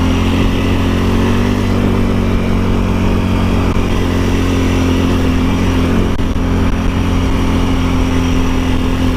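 ATV engine running steadily under way, a constant drone that holds much the same pitch throughout.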